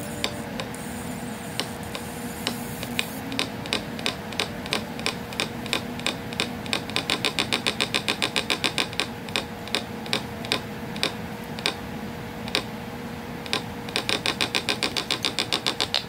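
Electronic bird-whistle circuit chirping through a small loudspeaker: short sharp chirps, sparse at first, quickening into a rapid trill about seven seconds in, thinning out again, then a fast trill from about fourteen seconds. A faint steady tone runs underneath.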